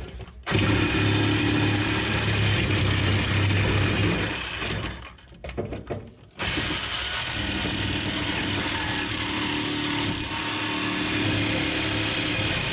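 Reciprocating saw cutting through a steel exhaust pipe, the blade prone to pinching in the cut. It runs for about four seconds, stops with a couple of short stutters, then starts again and runs steadily.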